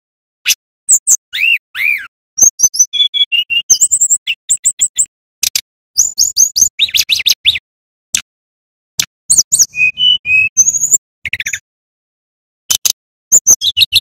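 Male brown-chested jungle flycatcher singing: phrases of rapid, high chattering notes mixed with whistled downward slurs, each phrase broken off by a short, abrupt silence.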